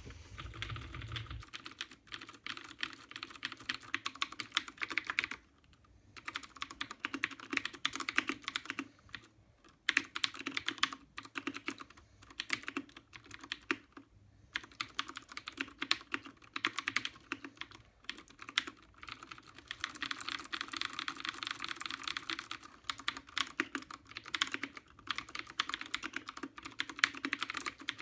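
Continuous fast typing on a mechanical keyboard with lubed Cherry MX Blue clicky switches and Corsair K63 keycaps, a rapid run of key clicks. It breaks off briefly a few times, around six, nine and fourteen seconds in.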